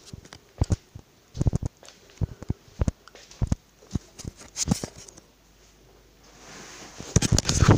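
Irregular soft thumps and knocks, the sound of someone moving through a house while holding a camera. A rustling noise swells about six seconds in and is loud near the end.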